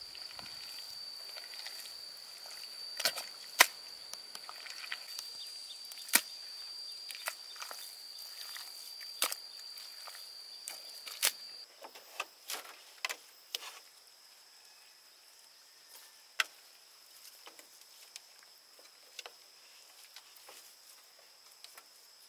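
Hands scooping loose dry soil into a woven bamboo basket, with scattered sharp scrapes and knocks; about 12 s in it gives way to quieter pats and clicks as a mud-and-straw mix is pressed onto a bamboo frame. A steady high-pitched tone runs underneath.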